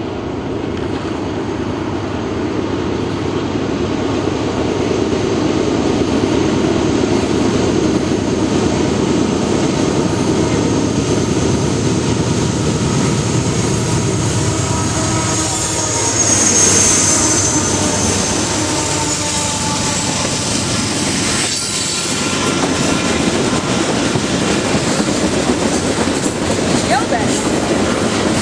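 Train rolling past, a steady rumble of wheels on rail with clickety-clack over the joints. Steel wheels squeal briefly about two-thirds of the way through.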